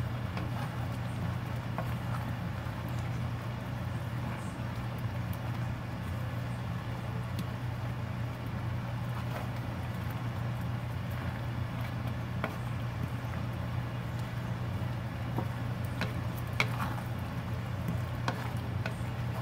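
A wooden spatula stirring simmering mung bean soup in a wide pan, with scattered clicks of the spatula against the pan, over a steady low hum.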